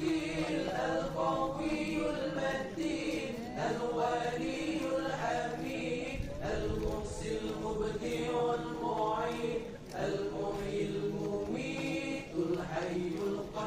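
Men's voices chanting a slow, melodic Islamic devotional recitation in long held notes.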